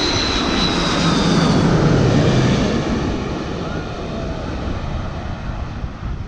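Twin-engine wide-body jet airliner passing low overhead on final approach to land: a loud jet engine roar with a high whine over it, loudest about two seconds in, then fading as the plane goes on down to the runway.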